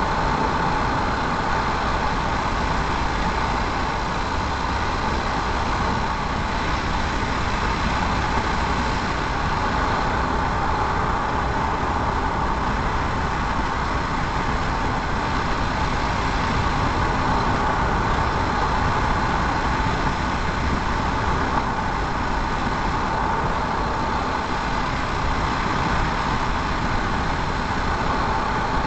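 Steady road noise inside a moving car's cabin: tyres running on asphalt with the engine underneath, even and unbroken at cruising speed.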